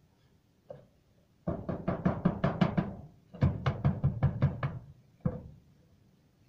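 Rapid knocking on a hard surface: two runs of quick, even strokes, about seven a second and each lasting a second or more, with a single knock just before and just after.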